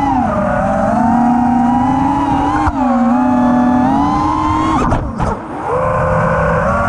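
The electric whine of a 5-inch FPV quadcopter's four T-Motor F60 V3 2350 kV brushless motors spinning tri-blade props, heard from the onboard camera, with the pitch rising and falling with the throttle. The whine dips sharply just under three seconds in. About five seconds in the throttle is chopped and the whine falls away briefly, then it climbs back and holds steady.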